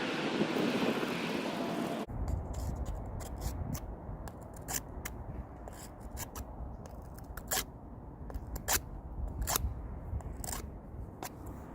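Scissors cutting leather: sharp snips at uneven intervals. A steady rushing noise cuts off abruptly about two seconds in, before the snipping.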